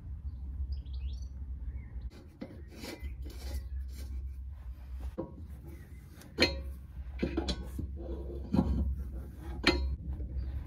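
Adjustable wrench tightening a threaded brass fitting into a steel air-suspension reservoir tank: metal clinks and scrapes as the wrench is fitted and turned. Several sharp clinks come in the second half.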